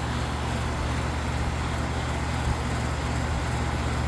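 Outdoor air-conditioning condensing unit running steadily: a low compressor hum under the even rush of the condenser fan, while the system is being charged with R-422B refrigerant.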